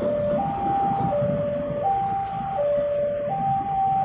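Level-crossing barrier's electronic warning alarm sounding as the boom arm rises: a steady two-tone hi-lo signal, each note held about three quarters of a second. A low rumble of idling motorcycles runs underneath.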